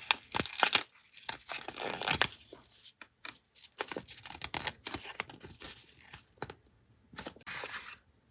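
Paper being torn and crinkled by hand in a series of short rips and rustles.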